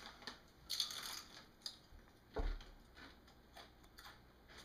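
Rustling of a Doritos chip bag as a hand reaches in, with chips crunching. The loudest burst comes about a second in, and there is a dull thump about halfway through.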